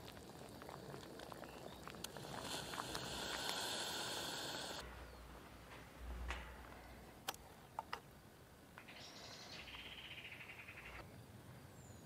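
Camping stove hissing under a pot of soup, heard in short cuts that start and stop abruptly, with a few sharp clicks in the middle.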